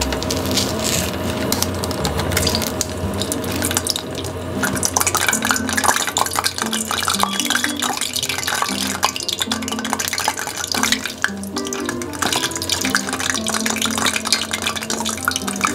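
Squares of enriched bread dough for beignets deep-frying in oil at 170–180°C, sizzling and crackling, the crackle growing denser from about four seconds in as the pieces go into the oil. Background music with a melody plays throughout.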